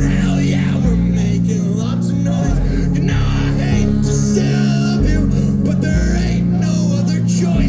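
A live rock band playing: strummed guitars over bass notes that change every second or so, with drums and cymbals.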